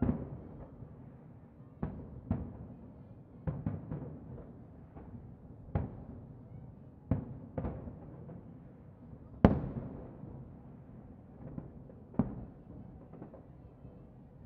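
Distant aerial firework shells bursting at irregular intervals, about ten sharp reports, each trailing off, with the loudest about nine and a half seconds in.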